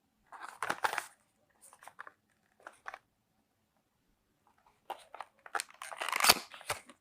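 Packaging being handled and opened, crinkling and rustling in short bursts, with a longer, louder spell of crinkling near the end.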